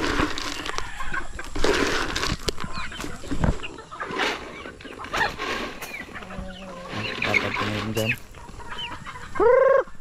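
Chickens clucking and squawking, with one loud call near the end.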